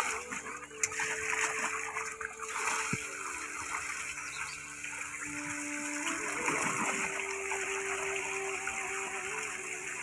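Water gushing from a hose and splashing into and over a metal pot held under it, and into a puddle below.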